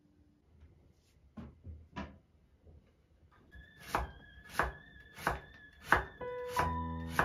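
Knife chopping on a cutting board: two single cuts, then a steady run of chops about one every two-thirds of a second. Soft piano music comes in near the end.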